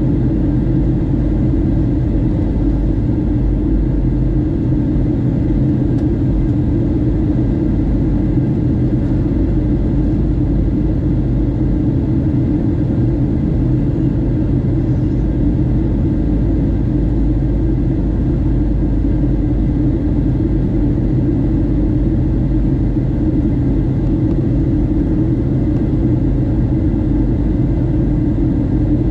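Steady cabin noise inside a Boeing 737-700 airliner during its descent: the low, even rumble of the engines and the airflow over the fuselage, with a faint steady whine above it and no change throughout.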